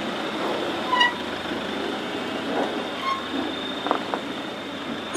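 Iveco Daily 4x4 truck crawling slowly over rough ground: a steady rumble of drivetrain and tyres, with a couple of short high squeaks and light knocks from the running gear.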